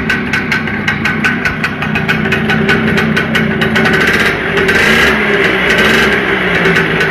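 Tomos Colibri T13 moped's small two-stroke single-cylinder engine running on its first start, revving up briefly about two-thirds of the way through before settling again.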